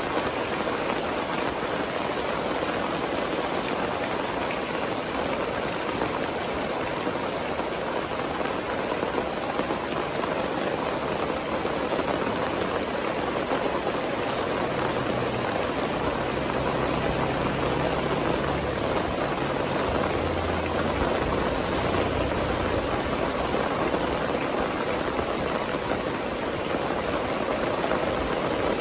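Very heavy rain pouring down steadily, a dense even hiss of rain on surfaces. A faint low hum comes and goes in the middle.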